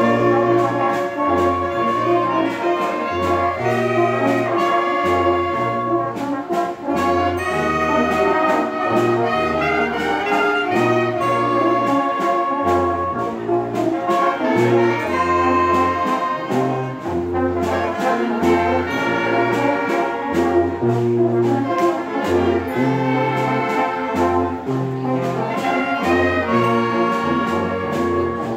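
Oaxacan youth wind band playing: clarinets, saxophones and brass over a sousaphone bass line, with percussion keeping a steady beat. The music starts right after a short pause and breaks off again at the end.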